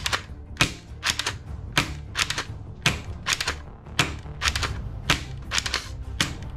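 Sharp plastic clicks and clacks from a toy rifle's parts as it is handled, irregular at about two or three a second, some in quick pairs.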